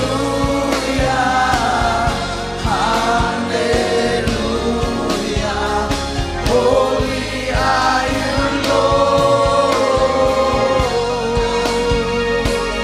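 Gospel worship music: many voices singing held, gliding lines over a band with a steady drum beat.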